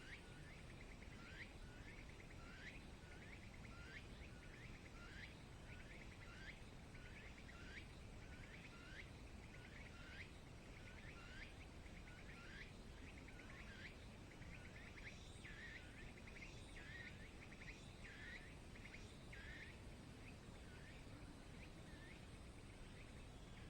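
A bird calling over and over: faint, short rising chirps about one and a half a second, a little stronger in the second half, over a low steady outdoor background hiss.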